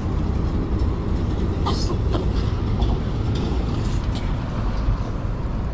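Steady low rumble of passing traffic, with a few faint clicks.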